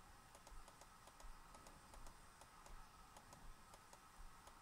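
Near silence with faint clicks, about four a second.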